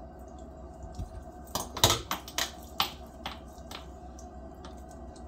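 Short wet smacks and clicks of hands rubbing seasoning into a whole sea bass on a wooden cutting board, bunched through the middle of the stretch, over a steady low hum.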